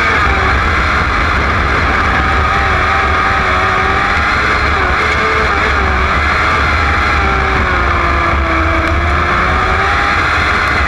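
Winged sprint car's racing engine at race pace, heard from an onboard camera in the cockpit. The engine note rises and falls with the throttle through the turns, dipping about three-quarters of the way through and then climbing again.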